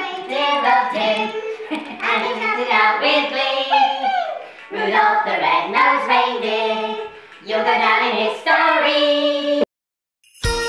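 Voices singing a song in short phrases. They stop about a second before the end, and just after that a music track with jingle bells begins.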